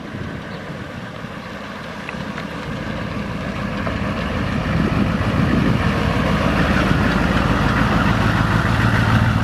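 HMMWV M998 Humvee's diesel V8 engine running as the truck drives up, growing louder over the first five seconds or so as it approaches and then holding steady as it rolls past close by.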